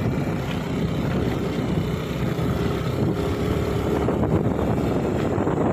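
Motorcycle riding along: its engine running steadily under a heavy rush of wind on the microphone.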